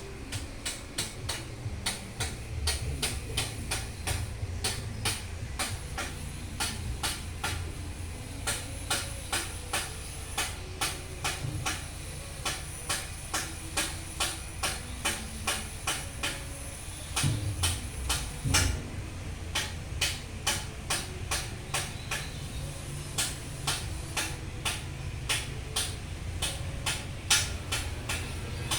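Floating fish-feed pellet machine running: a steady low motor hum with sharp clicks about two a second.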